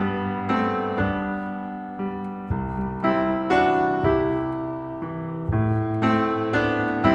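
Calm piano music: chords struck about once or twice a second, each ringing on and fading before the next.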